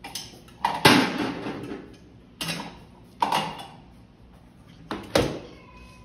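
Plastic play-café toys being knocked and set down on a play counter: about seven sharp clacks in small clusters, the loudest about a second in.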